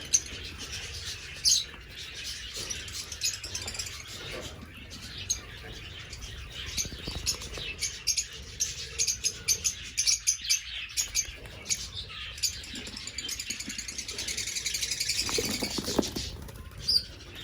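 Small cage birds chirping, many short high chirps mixed with clicks and some wing flapping, thickening into denser chattering near the end.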